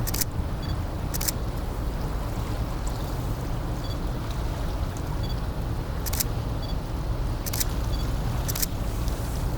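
Camera shutter clicking five times at uneven intervals, over the steady low rumble of a car ferry coming into port.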